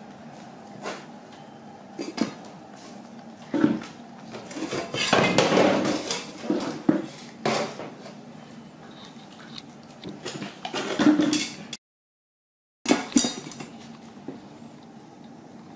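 Metal rice-cooker pot, lid and steel tray clinking and knocking as a monkey handles them while grabbing rice. The knocks come irregularly, with a denser clatter about five seconds in and again around eleven seconds.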